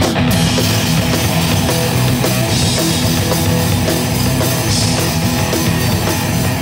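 Heavy metal band playing live: distorted electric guitars, bass and drum kit, loud and steady, with cymbals coming in at the very start.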